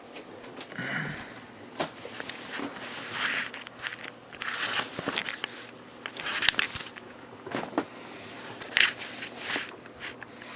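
Plastic packaging rustling and crinkling as it is handled, in irregular bursts with scattered sharp clicks.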